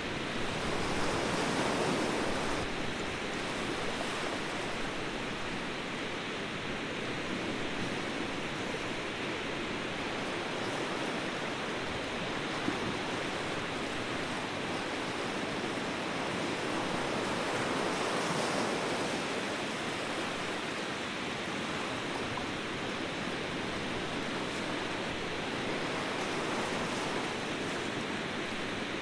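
Ocean surf: a steady wash of waves, swelling as a wave breaks about two seconds in and again around the middle.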